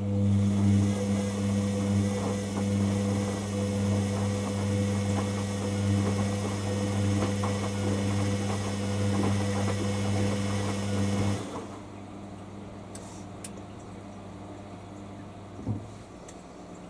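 Hoover WDYNS654D washer dryer running with a steady electric hum and a water-like hiss, mid-programme around the rinse. The sound cuts off abruptly about eleven seconds in, leaving only a quiet background with a couple of faint knocks.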